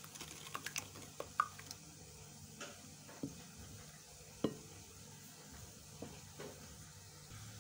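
A spoon stirring egg white into a thick spice marinade in a glass bowl, with scattered light taps and scrapes of the spoon against the bowl.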